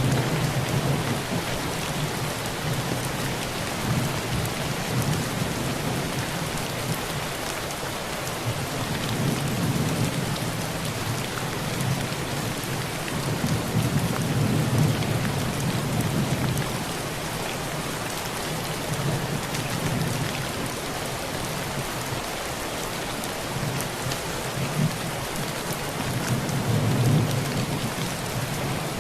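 Steady heavy rain falling on a rusty tin roof, with low rolls of thunder that swell and fade several times.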